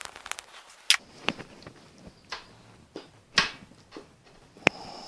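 Sharp clicks and knocks, about eight in five seconds, as a Ford flathead V8's crankshaft and main bearing caps are handled during bottom-end assembly. The loudest knocks come about a second in, about three and a half seconds in, and near the end.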